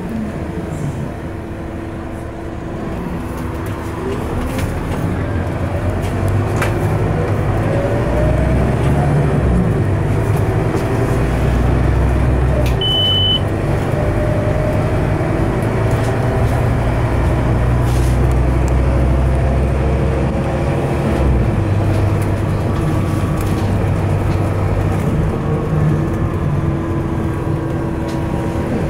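Scania K230UB bus's five-cylinder Scania DC9 engine and ZF Ecomat automatic gearbox, heard from inside the saloon. The engine rumble builds after a few seconds as the bus accelerates, with a rising gearbox howl, then runs steadily. A short high beep sounds about halfway through.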